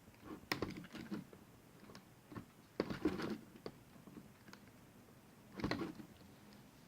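Irregular light clicks and taps of hands handling plastic laptop parts inside an opened laptop, with a few short clusters of knocks.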